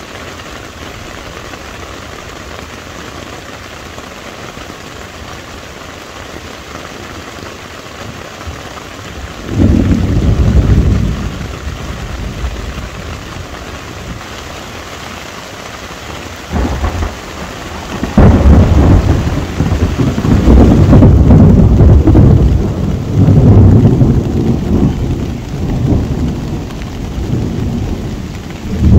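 Heavy rain falling steadily on a tent, with thunder rumbling in: a rumble about a third of the way through, a brief one a little later, and long rolling thunder from a little past halfway to the end.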